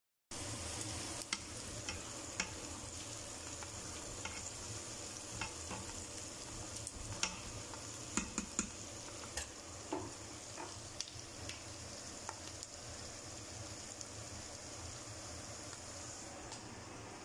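Chopped onions sizzling gently in oil in a metal pot, with a spatula stirring them and clicking against the pot now and then.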